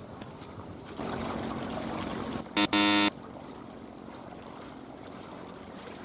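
Seawater lapping and trickling against barnacle-covered rocks and concrete tetrapods, a soft steady wash that swells for about a second and a half near the start. About two and a half seconds in, a short pitched sound-effect tone lasts about half a second.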